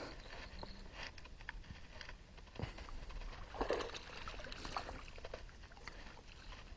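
Quiet water sounds from a fishing boat: a few faint, scattered small splashes and light knocks.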